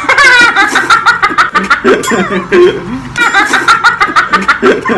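Several people laughing hard together, in quick repeated bursts of laughter.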